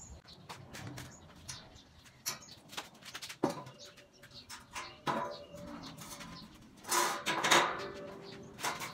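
Welded steel square-tube bed frames knocking and clanking irregularly as they are lifted, carried and set in place, with a few louder ringing clangs, the loudest about three-quarters of the way through.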